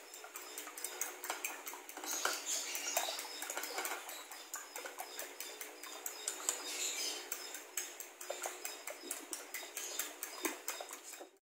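Fork beating raw eggs in a ceramic bowl: a quick, continuous run of light clicks and taps of the tines against the bowl, stopping just before the end.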